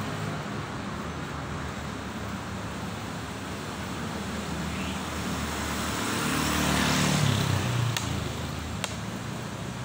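Steady road traffic noise, with a motor vehicle passing close by that grows louder to a peak about seven seconds in and then fades. Two light clicks come near the end, in time with a chess piece being set down on the board.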